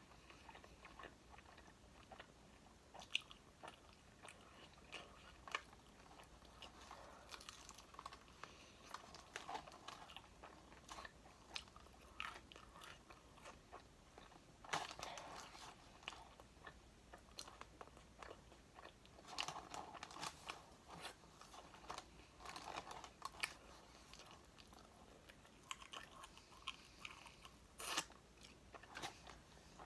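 A person chewing and biting into crispy fried chicken wings close to the microphone. The sound is quiet, with irregular sharp crunches of the crisp breading between softer chewing.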